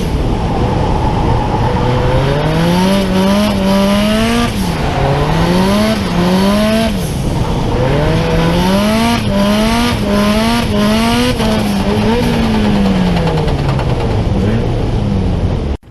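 Drift car's engine revving hard up and down over and over, its pitch climbing and dropping every second or so, over a dense rush of tyre noise. It cuts off suddenly near the end.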